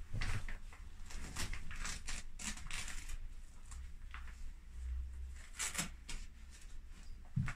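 Rustling, scuffing and scraping of a leather race suit and motorcycle boots being handled as a boot is pulled on, with scattered clicks and a knock near the end over a steady low rumble.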